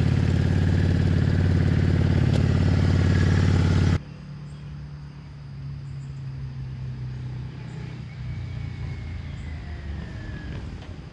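Yamaha V-Star 650's V-twin engine running steadily up close after a carburettor rebuild. About four seconds in the sound cuts to a much fainter motorcycle engine being ridden some way off down the street.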